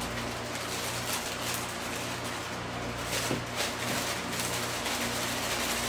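Crinkling and rustling of a plastic bag and shredded Easter grass as the grass is poured from the bag into a glass bowl, with a few faint ticks and a steady low hum underneath.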